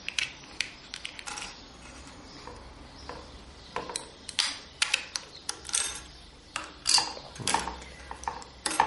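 Irregular clicks and taps of plastic and small metal parts as the plastic head of a hand-held tape-tying tool is pried open with a pocket knife and taken apart on a table, the clicks coming thicker in the second half.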